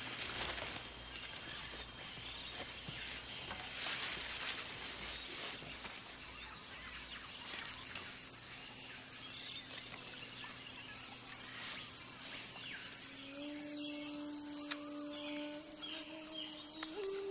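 Rainforest ambience: a steady background hum of insects with scattered faint bird chirps. Low held notes of a music score come in near the end and step up once in pitch.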